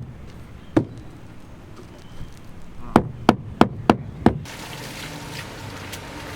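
Hammer blows: a couple of single knocks early, then a quick run of five blows about three seconds in. After that a steady hiss with a low hum takes over.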